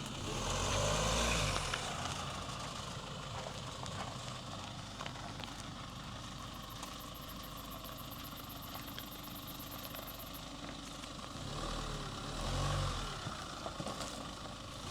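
Rely R8 pickup truck engine running at idle, with a low rumble that swells briefly at the start and again about twelve seconds in.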